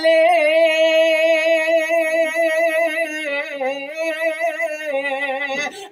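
Man singing a naat unaccompanied, holding one long note with a wavering vibrato for nearly six seconds; the pitch sinks lower in the second half before he breaks off near the end.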